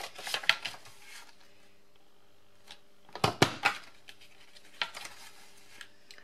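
Sharp plastic clicks and clacks of a WRMK envelope punch board's punch being pressed through two layers of folded cardstock, with paper rustling as the cardstock is folded and slid along the board. A first cluster of clicks comes right at the start, the loudest cluster a little past three seconds in, and a single click near five seconds.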